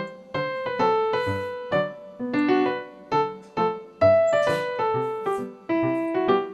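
Background piano music: a light melody of separate notes, several a second, each fading after it is struck.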